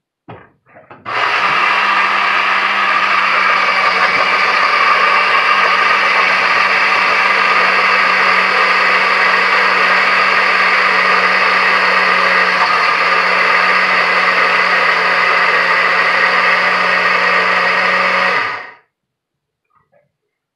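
Oster glass-jar countertop blender grinding dry clay cat litter into a fine powder, running steadily for about seventeen seconds before it winds down and stops. A couple of short knocks come just before the motor starts.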